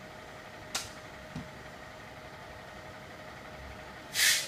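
Fire truck engine running at idle as a steady background drone. A sharp click comes about a second in, and a short, loud hiss comes near the end.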